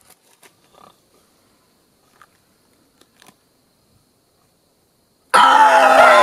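A few faint ticks and rustles, then about five seconds in a sudden loud human scream with a wavering pitch.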